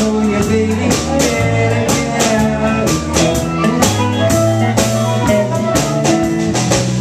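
Live blues band playing an instrumental passage: electric guitar and harmonica over a drum kit keeping a steady beat.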